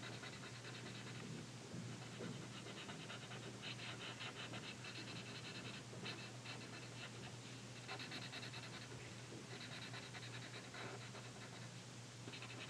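Black Sharpie marker scrubbing on paper in quick back-and-forth strokes, filling in a solid circle: faint, scratchy runs of strokes that start and stop every second or two.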